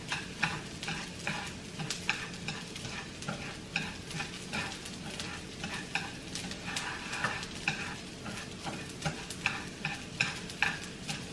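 Washed raw rice being stirred and toasted in a frying pan with wooden chopsticks: irregular scraping and clicking of the chopsticks and grains against the pan, several strokes a second, with a frying sizzle. This is the step of toasting the rice before it goes into the broth for congee.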